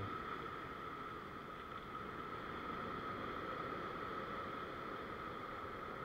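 Ocean surf washing over a rock ledge as a steady, even rush, with wind on the microphone and a thin steady tone underneath.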